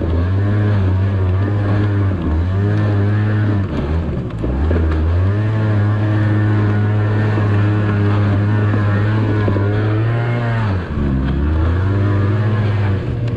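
Small scooter engine running hard at steady high revs. The revs dip and climb back twice, about four seconds in and near the eleventh second, as the throttle is eased and opened again.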